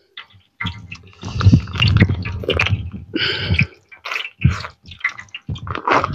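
Cooking oil poured from a plastic pouch into a large cooking pot, glugging and splashing in a steady stream for about three seconds, then in a few short spurts as the pouch empties.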